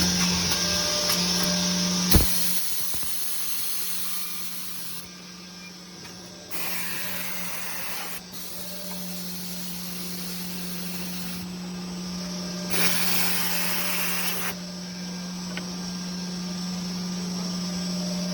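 Bevel edge banding machine running: a steady motor hum under hissing machine noise. A sharp knock comes about two seconds in, and two louder bursts of hiss, each under two seconds, come in the middle and about two-thirds of the way through.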